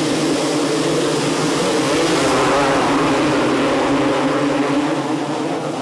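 A full gate of 250 cc two-stroke motocross bikes revving together at the start and accelerating away in a pack, many engine notes layered into one dense, loud noise that builds over the first couple of seconds.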